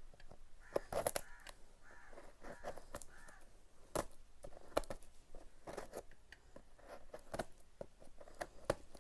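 A blade slicing and tearing open the cardboard packing of a parcel, with irregular scrapes, rips and clicks. A few short pitched calls come in during the first few seconds.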